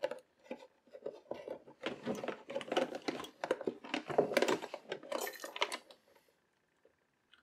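Irregular clicks and clatter of a hard plastic ammo-box case and its parts being handled, stopping about six seconds in.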